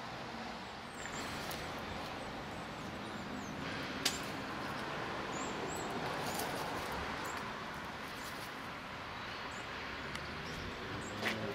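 Steady distant city traffic noise, with a sharp click about four seconds in and another near the end.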